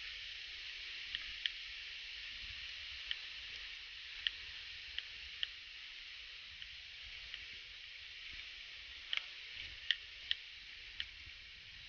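A squirrel scolding with short, sharp chip calls, scattered irregularly and coming thicker near the end, over a steady high hiss of forest background.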